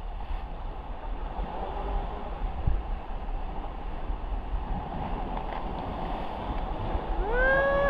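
Surf washing and sloshing over rocks around a canoe, with wind rumbling on the microphone. Near the end a held high tone with overtones comes in.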